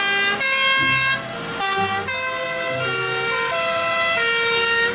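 Two-tone sirens of several fire engines in a convoy sounding together. Each steps between two pitches about every half second, so the tones overlap and keep changing, with a low engine hum beneath from about a second in.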